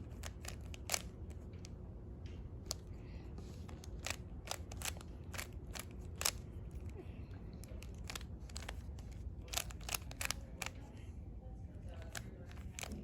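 Rubik's cube being turned by hand: quick, irregular plastic clicks as the layers are twisted, sometimes several in quick succession, over a low steady room hum.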